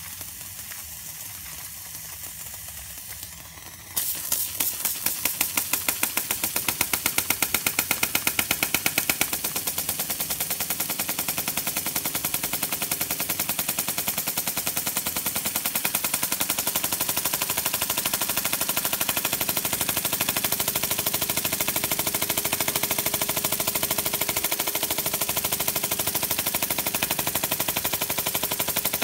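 Model oscillating-cylinder steam engine on boiler steam: a quiet hiss for about four seconds, then the engine starts and runs with a fast, even beat of throaty exhaust chuffs. The beats are loudest for the first few seconds after starting, then settle into a steady rapid rhythm.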